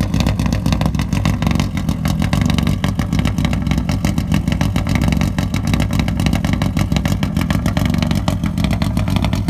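Lada VFTS rally car's four-cylinder engine running at a steady speed, its exhaust giving rapid, even pulses.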